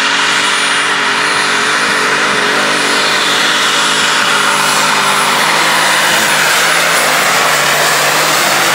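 Competition pulling tractor's engine running flat out as it drags the weight sled down the track, on its way to a full pull. A high steady whine sits above the engine.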